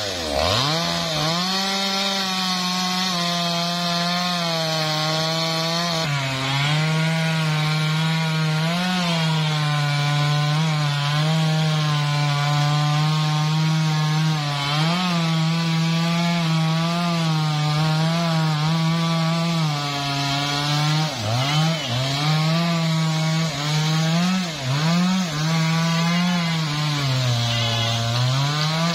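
Two-stroke chainsaw at full throttle making a felling cut through a standing tree trunk at its base. The engine note holds steady and sags briefly several times as the chain bites into the wood, then drops off right at the end.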